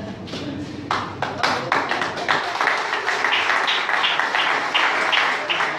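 Guests clapping. Scattered claps start about a second in and settle into steady rhythmic clapping in unison, roughly three claps a second.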